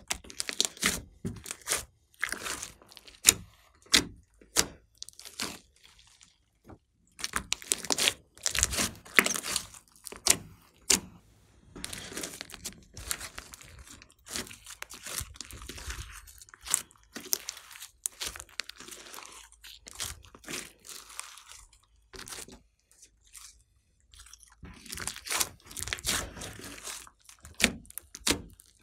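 Hands squeezing, stretching and folding a large lump of glossy slime mixed with small foam beads: irregular wet squelches with sharp crackling pops of trapped air, broken by a couple of brief quiet gaps.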